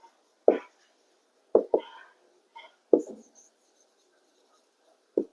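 Writing: about five short, scratchy strokes of a pen or marker, irregularly spaced, as a definition is written out.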